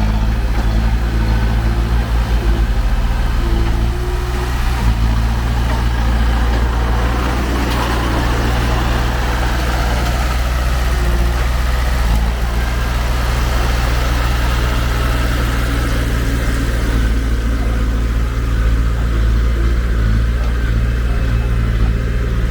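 Heavy diesel engine of earthmoving machinery running steadily at low speed, with a deep, even hum.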